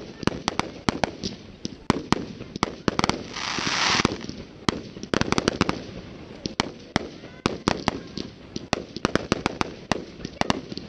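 Fireworks display: aerial shells bursting in quick, irregular succession, with many sharp cracks and reports. About three seconds in, a loud hiss lasts about a second.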